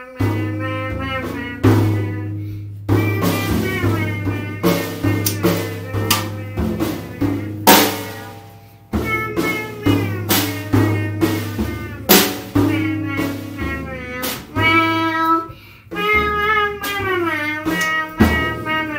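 Rogue drum kit being played: bass drum, snare and cymbal hits in a loose rhythm, along with a pitched melody and sustained bass notes.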